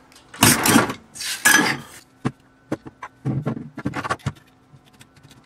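Metal electronics module being handled and set down on a wooden workbench: two loud scrapes in the first two seconds, then a run of clicks and knocks of metal parts against the bench.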